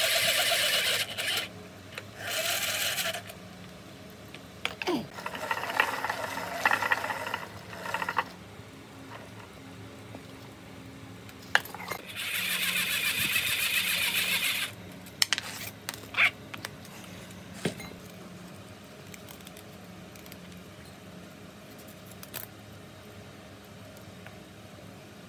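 Hand-cranked coil winding jig whirring in four short spells of cranking, the longest about three seconds, as copper wire is wound onto a motor coil. Scattered clicks and taps of handling between the spells and after them.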